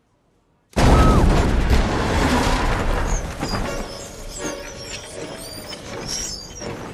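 A sudden loud blast about three quarters of a second in, as a door bursts open, then debris clattering down while it dies away. High squeaks of mice come through from about three seconds in.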